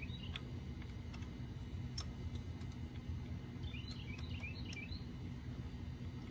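A few sharp metallic clicks of wrenches on a square oil drain plug as it is worked loose, over a steady low background rumble. A bird twitters briefly about four seconds in.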